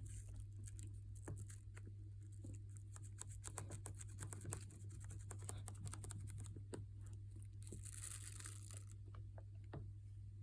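Faint, irregular scratching and small clicks of toothbrush bristles scrubbing inside an iPad's charging port, with a short hiss of brushing a little before the end. A steady low hum runs underneath.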